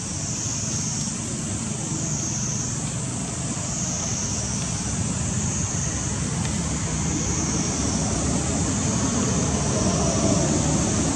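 Outdoor ambience: a high-pitched insect chorus that wavers up and down every second or two, over a steady low rumble.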